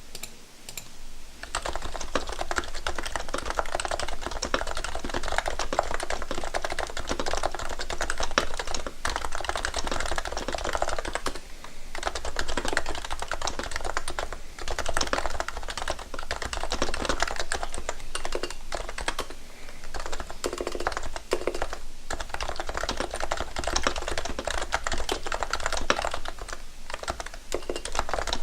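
Realforce for Mac keyboard with Topre electrostatic capacitive switches being typed on quickly and continuously. The typing starts about a second and a half in and has a brief pause partway through.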